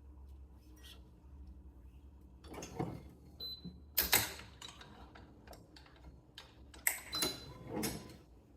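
Clicks and short scraping rustles from stringing a badminton racquet, loudest about four seconds in and again near the end.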